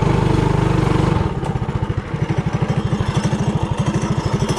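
Trailmaster Hurricane 200X mini bike's single-cylinder four-stroke engine running on the throttle, then dropping to idle about a second in as the bike rolls to a stop, its separate firing beats audible at the slower speed.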